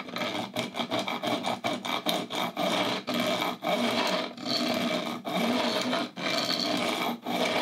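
A fret file set at an angle in a wooden bevelling block, stroked back and forth along the edge of a guitar fingerboard, rasping across the fret ends to bevel them. Quick short strokes at first, then longer ones.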